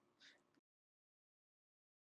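Near silence: a faint trace at the very start, then the audio drops to total digital silence about half a second in.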